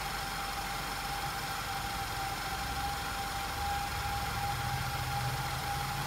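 Audi TFSI direct-injection engine idling, with a steady high whistle over the low engine hum, which grows a little stronger about halfway through. The whistle is the noise of false air entering through a punctured diaphragm in the engine's breather cover, a vacuum leak that leans the mixture and lights the check-engine lamp.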